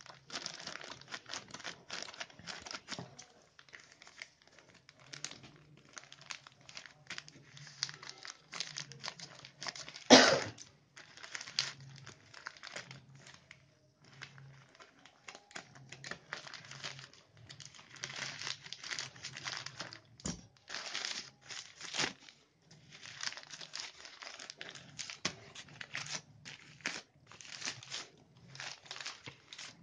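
White plastic courier packet crinkling and tearing as it is cut open with scissors and pulled apart by hand, in irregular bursts of rustling. There is one much louder crackle about ten seconds in.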